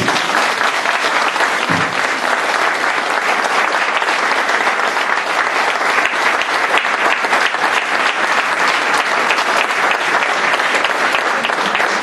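Audience applauding: dense, even hand-clapping that starts abruptly and keeps up steadily.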